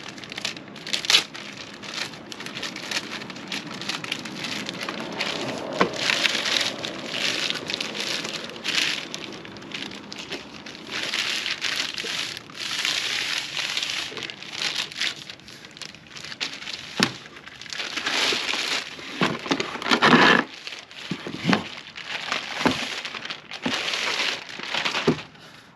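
Packaging being handled as aluminum running boards are unwrapped: irregular rustling, crinkling and scraping, with scattered sharp clicks and knocks and a louder burst about three quarters of the way through.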